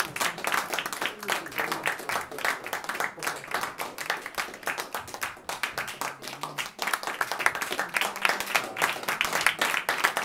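Audience applauding, a dense patter of many hands clapping that thins a little midway and swells again near the end.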